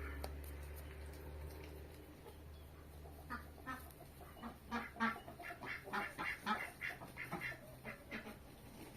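Domestic ducks quacking in a rapid run of short calls, starting about three seconds in and going on until near the end. A low hum fades out during the first few seconds.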